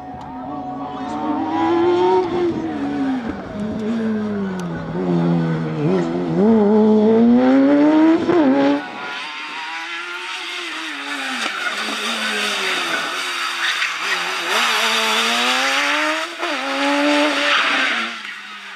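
Slalom Suzuki hatchback powered by a Kawasaki ZX-12R inline-four motorcycle engine, revving hard, its high engine note rising and falling again and again as it accelerates and brakes between the cones. Through the second half the tyres squeal in the tight bends.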